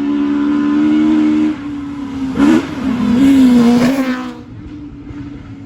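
Rally car engine held at steady high revs, then a sharp throttle blip and wavering revs before the sound drops away about four seconds in.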